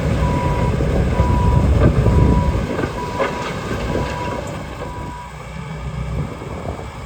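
Bobcat T870 track loader running and reversing: engine and track clatter with a back-up alarm beeping about once a second until about five seconds in, and a couple of clanks along the way.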